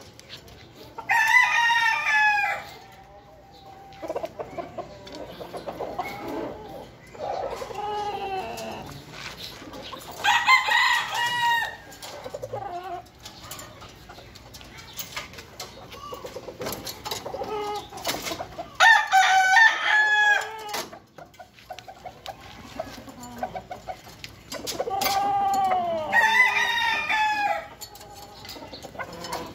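Roosters crowing, four loud, long crows spaced several seconds apart, with fainter crows from other birds in between.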